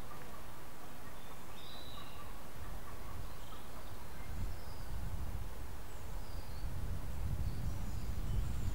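Small birds chirping in woodland over a low, gusty rumble of wind on the microphone that grows stronger in the second half.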